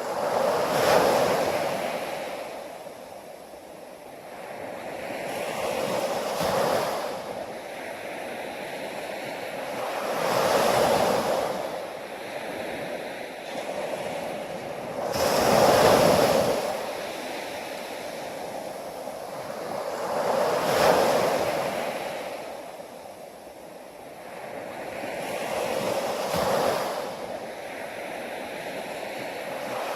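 Ocean waves washing in, the surf swelling and fading about every five seconds.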